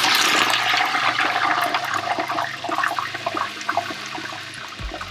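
Hot oil in a propane turkey-fryer pot bubbling and sizzling hard as a whole turkey is lowered into it on a hook, with many small crackles and pops. The rush is loudest at first and gradually eases.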